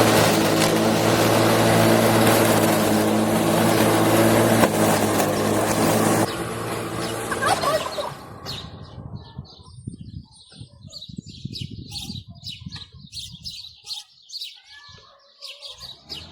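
Petrol lawn mower engine running steadily, then shutting off about six seconds in and winding down. Birds chirp after it stops.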